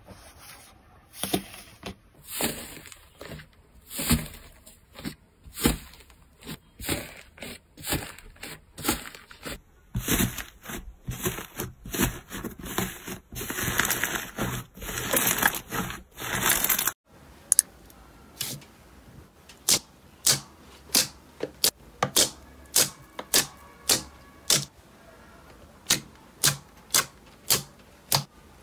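Crunchy slime being squeezed and poked by hand, giving sharp crackling clicks, thickest for several seconds past the middle. After a sudden cut the clicks come evenly, about two a second.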